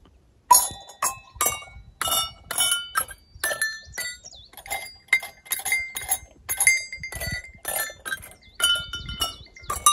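Several livestock bells clanking irregularly, roughly two strikes a second at a few different pitches, starting about half a second in.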